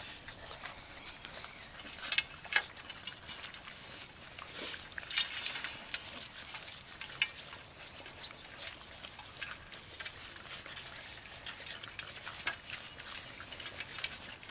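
Norwegian elkhound puppies eating together from a metal dish: irregular wet smacking, lapping and chewing clicks, with sharper ones about two, five and seven seconds in.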